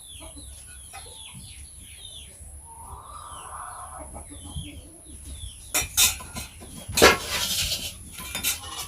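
Chickens calling nearby in a run of short, high, repeated clucks and chirps. From about six seconds in, loud clattering and scraping of cookware takes over.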